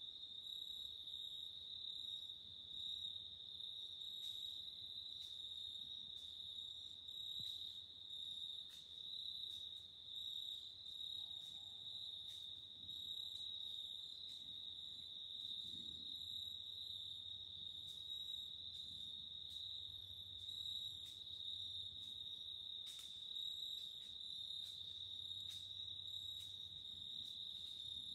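Steady high-pitched chorus of insects singing in the woods, one unbroken tone with faint scattered ticks over it.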